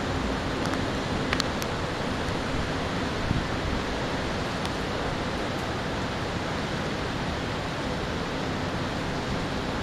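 Steady hiss of storm rain, even and unbroken, with a few faint sharp ticks about a second in.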